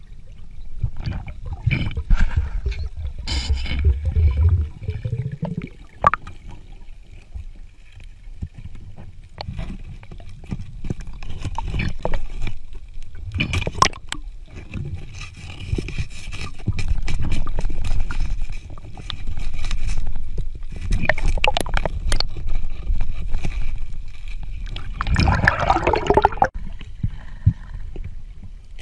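Underwater gurgling and rumbling of water against the camera, with scattered scrapes and knocks as a gloved hand works among the rocks, and a louder gurgling burst near the end.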